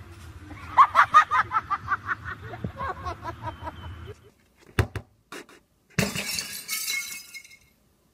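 A quick run of high, repeated cries, then a pause and two sharp knocks, then a loud crash of glass shattering that rings on for about a second and a half.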